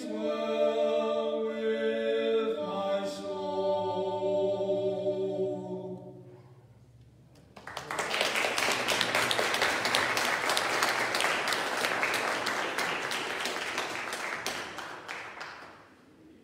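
Two men singing a sacred song together, their final phrase fading out about six seconds in. After a short pause, the congregation applauds for about seven seconds, and the clapping tails off near the end.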